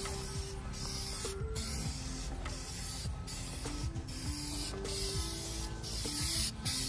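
Spray paint hissing in back-and-forth passes, the hiss breaking off briefly about once a second.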